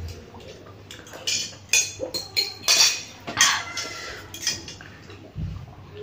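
A spoon and a fork clinking and scraping against plates while two people eat noodles quickly, in irregular short clinks.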